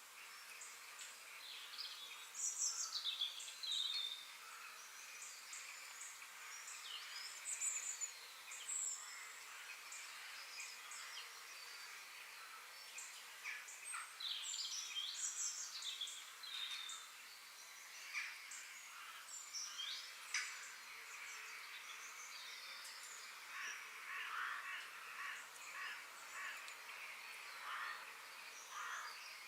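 Forest ambience: several songbirds chirping and calling, with quick falling whistles and short notes scattered throughout, over a steady high background hiss.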